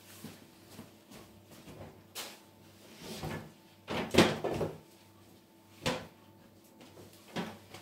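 Scattered knocks and clatter of kitchen things being put away off to one side, with a cupboard door or drawer shutting; the loudest knock comes about four seconds in, with lighter ones around it.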